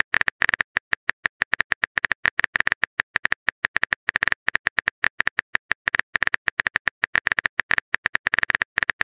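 Keyboard typing sound effect: a quick, irregular run of sharp clicks, several a second, as a chat message is typed out.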